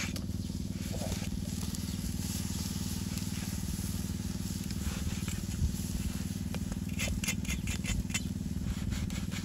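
A small engine running steadily with a low, rapid, even pulse. A few sharp clicks come about seven to eight seconds in.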